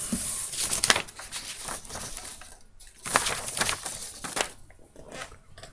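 Rustling and scraping handling noise with scattered clicks, in two bouts: one at the start and another about three seconds in.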